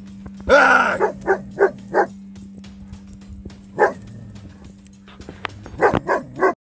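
A dog barking sharply at a cougar at close range: about eight short barks, some coming in quick pairs and threes. There is one longer, louder cry about half a second in, and the sound cuts off suddenly near the end.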